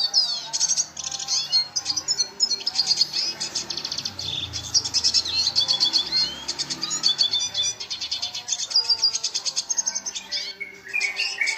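Red siskin singing a long, rapid twittering song of fast trills and chirps with hardly a break, pausing briefly near the end.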